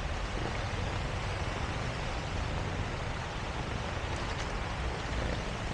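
Heavy rain falling in a steady hiss over a low rumble.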